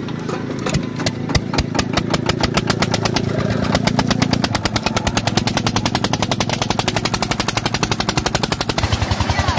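Single-cylinder diesel engine of a belt-driven borewell water pump set starting up: its separate exhaust beats come slowly at first and quicken within about four seconds into a fast, steady chugging.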